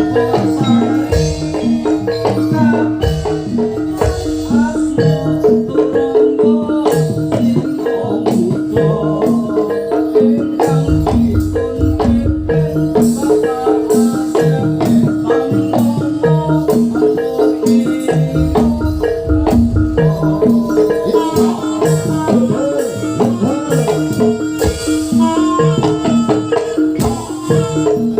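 Javanese gamelan music for a jaranan dance: tuned metal percussion playing a fast, repeating pattern of notes over drum beats.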